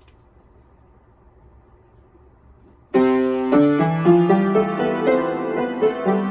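A few seconds of quiet room tone, then an upright piano suddenly starts playing about three seconds in: several notes at once, with held lower notes under a moving line above.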